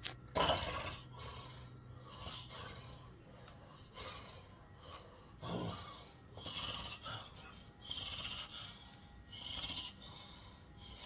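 A person snoring, a string of harsh snorts and gasping breaths about one every second or two, typical of obstructive sleep apnea.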